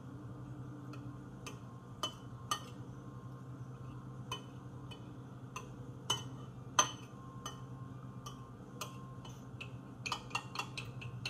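A metal fork clinking against a ceramic bowl while wet batter ingredients are stirred, in irregular taps about one or two a second that come quicker near the end. A steady low hum runs underneath.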